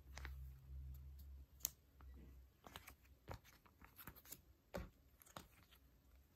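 Faint crinkling and scattered clicks of clear plastic sleeves and polymer banknotes being handled and shuffled, over a low hum that fades after about two and a half seconds.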